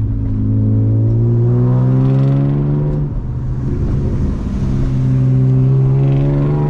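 The straight-six engine of a manual 1999 BMW 328i (E36) pulling under acceleration, its pitch rising steadily. About three seconds in it breaks off for a gear change, drops in pitch and climbs again as the car pulls in the next gear.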